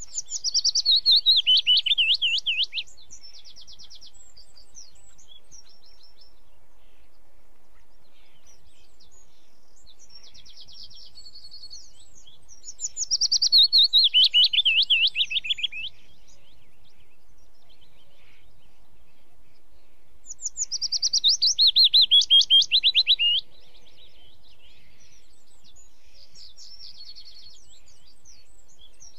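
A songbird singing three times a loud phrase of quick notes that run down in pitch, each lasting about three seconds, with softer short trills in between.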